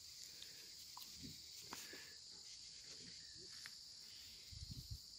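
Near silence: a faint, steady, high-pitched insect drone, with a few faint clicks and some low rustling near the end.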